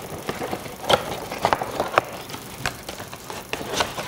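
Cardboard and plastic doll-box packaging being handled and pulled apart: irregular crackles and snaps.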